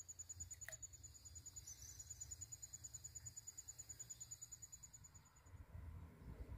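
Near silence with an insect's faint, steady, high-pitched trill that stops near the end, and one short falling whistle under a second in.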